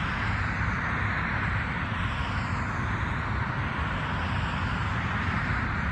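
Steady outdoor background noise with a low rumble and an even hiss, with no distinct events or bird calls.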